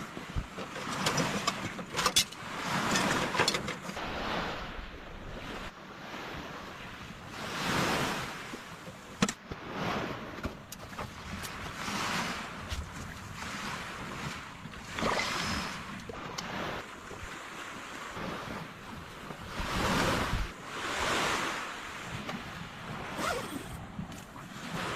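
Sea waves breaking and washing up on a beach, the surf swelling and fading every few seconds. A few sharp clicks sit over it.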